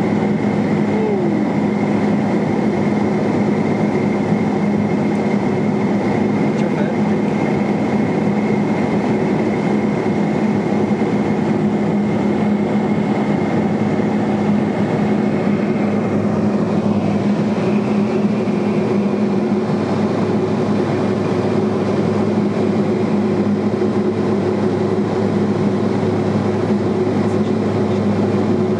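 Cabin drone of a Cessna Silver Eagle 450's Rolls-Royce 250 turboprop engine and propeller in steady cruise, heard inside the pressurised cabin: a constant low hum with a thin high whine above it.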